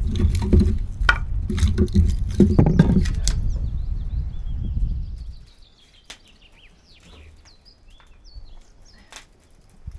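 Footsteps crunching on a gravel path, with low rumble from the camera being carried. About five seconds in this drops away to small birds chirping, with a few sharp crackles from a wood fire burning in a grill.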